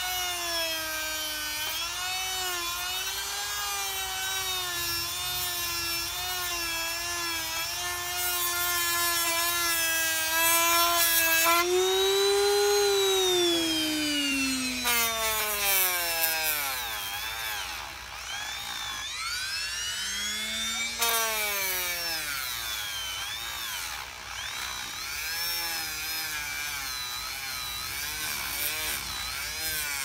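Handheld rotary tool with a small bit grinding and shaping carved wood: a steady high motor whine with a grinding rasp. About twelve seconds in the pitch drops, and then it keeps dipping and rising.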